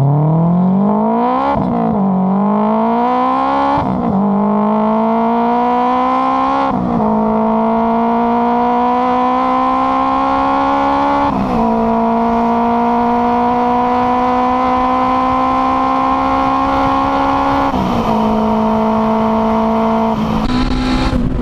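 Boosted Honda Integra DC5's K20 four-cylinder engine pulling hard through the gears. The pitch climbs and drops back at each upshift, four times in the first dozen seconds, then settles to a nearly steady pitch.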